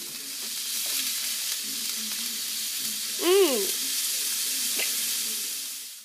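Meat patties sizzling in a nonstick skillet with a steady hiss while a spatula turns and lifts them. About halfway through, a short pitched sound rises and falls; it is the loudest moment. The sound cuts off suddenly at the end.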